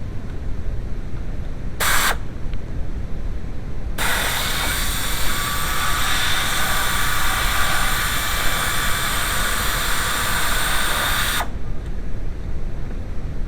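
A short hiss of pressurised spray, then a long steady one of about seven seconds, over a low steady rumble.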